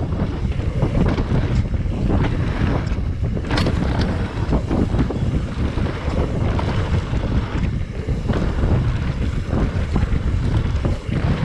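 Wind buffeting a mountain biker's action camera as the bike runs down a rough woodland trail. It is a heavy, steady rumble, with frequent knocks and rattles from the bike over the ground and a sharper knock about three and a half seconds in.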